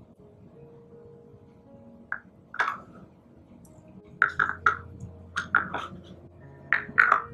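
Plastic popsicle-mold lids clicking and knocking as they are pressed into place on the mold tray: a few sharp clicks about two seconds in, then a quick run of them in the second half, over faint background music.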